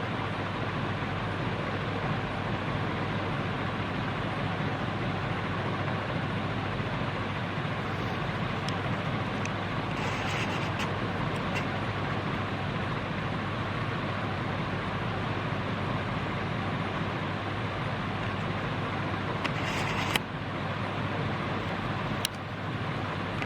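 CMC CF-101 48-inch industrial ceiling fan running steadily, a constant rush of moving air over a low hum. A few brief rustles about ten seconds in and near the end, and a sharp click shortly before the end.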